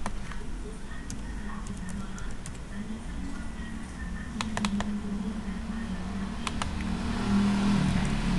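Scattered sharp clicks of a computer mouse, some in quick runs of two to four, as folders are opened and a file is selected. Faint background music plays underneath.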